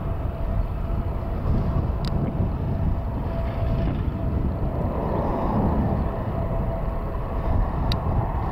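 Boeing 737-800's CFM56-7B turbofan engines on approach, a steady low rumble with a faint steady hum above it.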